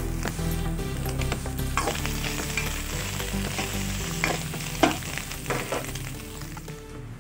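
Meatball slices, sausage, egg and chillies sizzling in a wok while a spatula stirs them, with several sharp scrapes and knocks of the spatula on the pan, the loudest a little before five seconds in.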